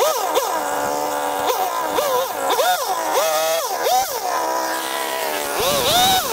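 Small petrol chainsaw revving up and down over and over, its pitch jumping up sharply and falling back one to two times a second. Near the end it sounds heavier and lower as the chain bites into wood.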